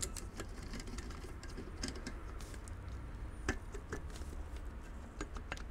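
Scattered light clicks and knocks of hand tools and metal parts being handled while a car alternator is taken apart on a bench, with a sharper knock about three and a half seconds in. A low steady hum runs underneath.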